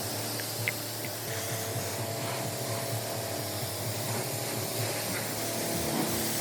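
Car wash: water spraying steadily against a van's body, with a machine hum underneath.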